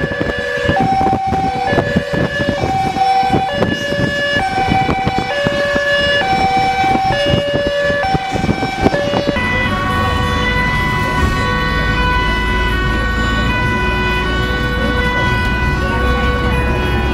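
Emergency vehicle two-tone sirens sounding their alternating high-low notes, about one note a second. About nine seconds in, the sound shifts to a higher-pitched pair of alternating notes, over a steady low vehicle and road rumble.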